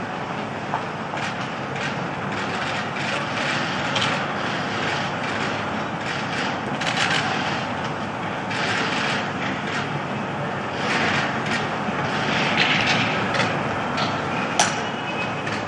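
Steady background noise of a large airport terminal hall, with scattered short clicks and rustles throughout and a brief high tone near the end.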